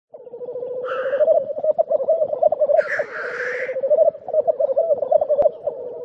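Male black grouse giving the lekking display song: a continuous bubbling, cooing 'rookoo'. It is broken twice, about one and three seconds in, by loud hissing 'sneeze' calls.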